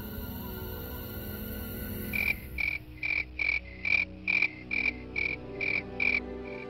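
Frog croaking in an even rhythm, about two and a half short calls a second, starting about two seconds in over a low steady drone and turning fainter near the end.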